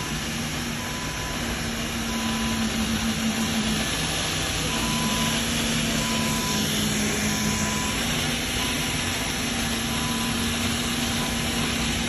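Avidbots Neo robotic floor scrubber-dryer running, its motors giving a steady whirring hum, with faint short beeps repeating about once a second.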